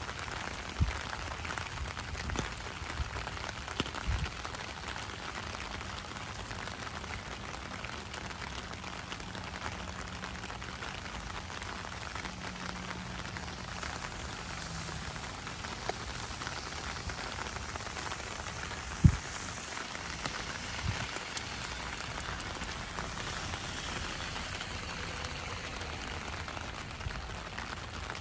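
Steady rain falling on a wet street and pavement, a constant even patter of drops. A few short low thumps break through, one much louder than the rest about two-thirds of the way in.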